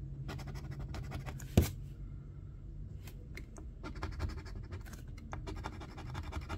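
Metal coin scraping the coating off a paper scratch-off lottery ticket in quick repeated strokes, with one sharp tap about a second and a half in.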